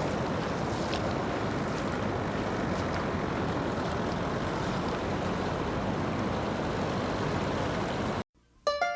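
Steady rushing of floodwater pouring through a fresh channel cut in a sandbar, which cuts off suddenly near the end, where plucked music notes begin.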